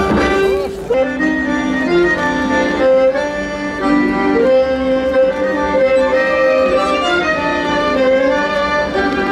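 Instrumental folk music: an accordion playing a melody in held notes, with a fiddle.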